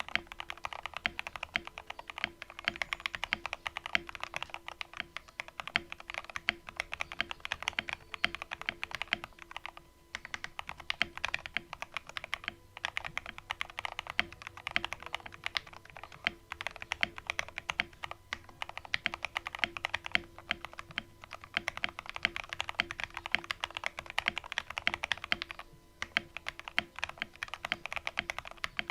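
Typing on a mechanical keyboard with stock, lightly factory-lubed JWK Black linear switches in a CIY Tester68 board with PE foam, foam and tape mods: a fast, continuous run of keystrokes broken by a few brief pauses.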